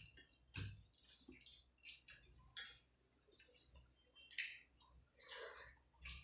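Close eating sounds: rice and curry squished and kneaded by hand on the plate, with wet chewing and mouth smacks in irregular short bursts. The sharpest, loudest smack comes a little over four seconds in.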